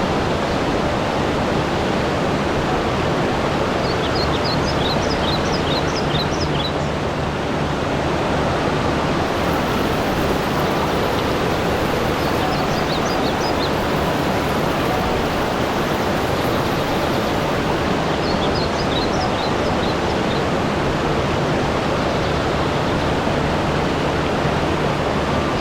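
Steady rushing water, with short runs of high bird chirps over it, four times.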